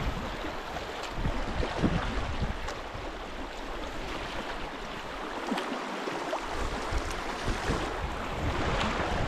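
Fast, swirling river water rushing past a canoe's hull, with wind rumbling on the microphone and now and then the splash of a paddle stroke.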